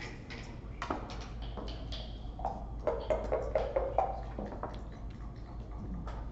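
Room tone with a few light clicks and a faint murmur of voices in the middle.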